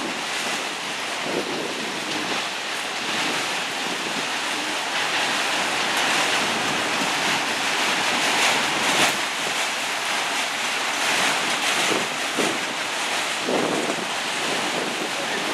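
Freight train of autorack cars rolling past: a steady rushing noise of steel wheels on rail, with a few faint knocks.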